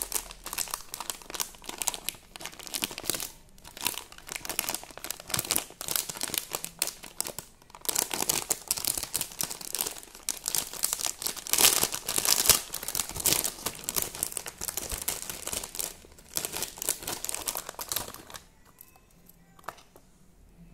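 Plastic jewellery packaging crinkling and rustling as it is handled and pulled open, loudest about halfway through; it stops a couple of seconds before the end.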